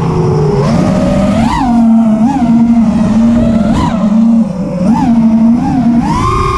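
Brushless motors of a 4S FPV racing quadcopter whining, the pitch swooping up and down with quick throttle blips, then holding a higher steady pitch near the end.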